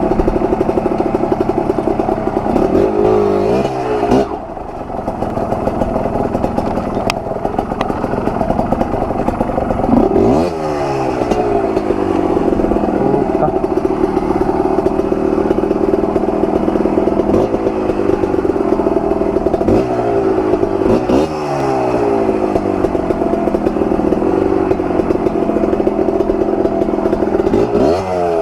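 Kawasaki KMX 125 two-stroke dirt bike engine under way, holding steady revs with a sharp pitch change about five times, as at gear changes, and a brief drop in loudness about four seconds in as the throttle closes.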